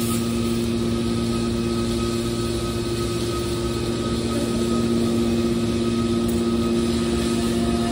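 Hydraulic scrap metal baler's power unit running steadily: an electric motor and pump give a constant hum with a couple of steady whining tones that hold their pitch.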